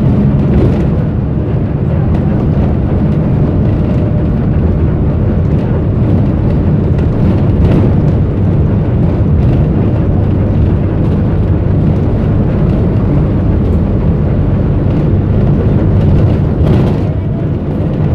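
City bus running, heard from inside the passenger cabin: a loud steady low rumble of engine and road noise, with a few brief clatters.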